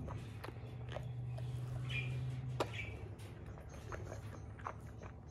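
Chow Chow dog eating from a plate: wet chewing and smacking, heard as a string of short clicks, the sharpest about two and a half seconds in.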